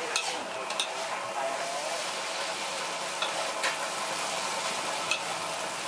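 Pad Thai noodles sizzling in a large metal wok as they are tossed and stirred, with a few sharp clicks of the metal spatula and tongs against the wok.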